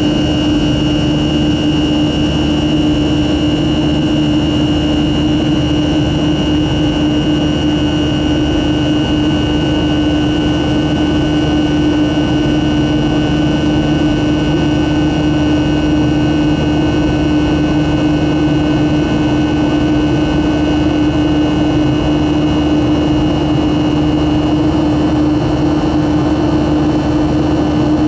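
Boeing 737-400's CFM56 jet engines running steadily, heard from inside the cabin: a loud, even rush of noise with a steady hum and a high whine.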